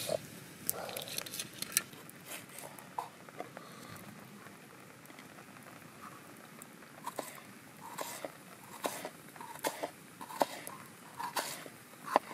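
Knife slicing an onion on a wooden log-slice board: crisp cuts, each ending in a knock of the blade on the wood, coming irregularly from about seven seconds in.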